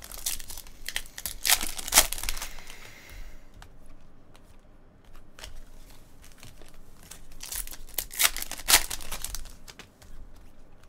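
Foil wrapper of a Bowman's Best baseball card pack being torn open and crinkled, in two spells of sharp crackling: one in the first three seconds or so and another from about seven and a half to nine and a half seconds in, with softer rustling between.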